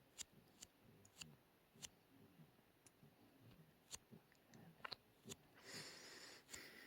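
Faint snoring of a sleeping puppy: quick, soft breaths with small clicks among them, and a longer breathy exhale near the end.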